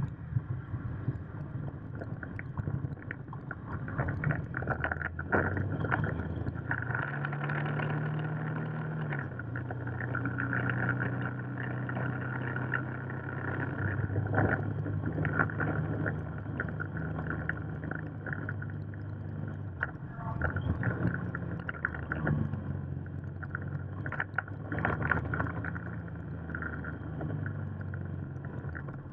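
Motorcycle engine running under way, its note rising about seven seconds in and dropping back a couple of seconds later, with wind rushing and buffeting across the microphone.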